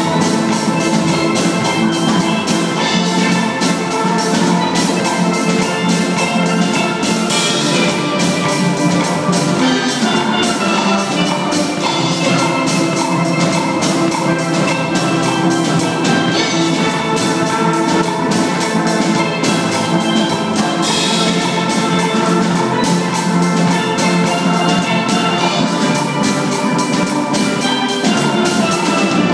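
A steel orchestra of many steelpans playing together, a dense run of quick struck notes over many pitches at a steady loud level.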